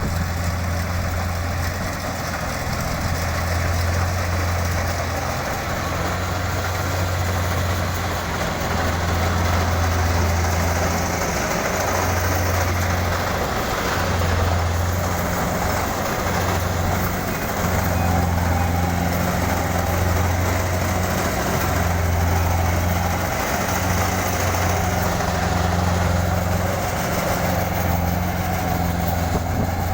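Kubota DC-70 combine harvester's diesel engine running steadily: a low drone that swells and eases every second or two, with an even mechanical rush from the machine above it.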